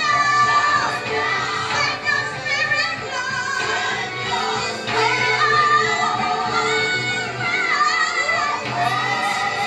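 Gospel song playing, with singing in long, wavering held notes over the backing music.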